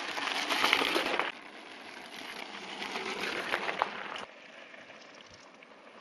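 Mountain-bike tyres crunching and crackling over a gravel dirt road as a rider passes close by. The noise swells twice, then drops off suddenly at about four seconds.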